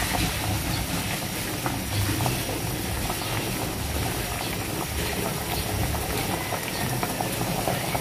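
Fish soup with camote tops at a rolling boil in a pot, bubbling steadily with many small pops, a low rumble underneath.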